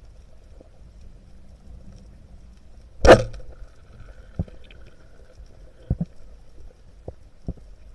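A speargun firing underwater about three seconds in: one sharp crack with a short ringing tail, followed by a faint steady tone and a few scattered short knocks.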